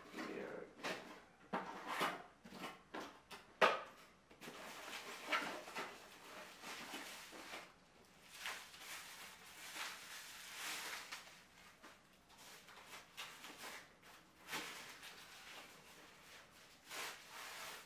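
Camera packaging being handled. A few sharp knocks and clicks from the cardboard box's flaps in the first few seconds, then rustling and crinkling of the camera's soft white wrap as it is lifted out of the box and unwrapped.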